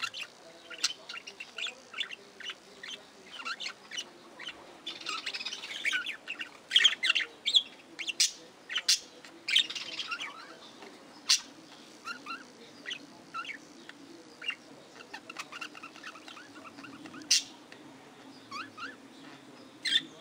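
Budgerigars chattering: a steady stream of short chirps and warbling calls, busiest from about five to ten seconds in, with a few sharp, loud squawks.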